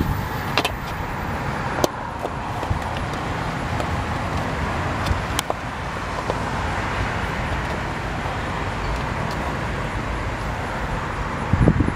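Steady low rumbling background noise with a few light clicks scattered through it.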